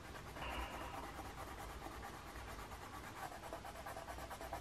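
Soft scratching of a colour stick being rubbed onto sketchbook paper to swatch a new colour, strongest from about half a second in to about three seconds in.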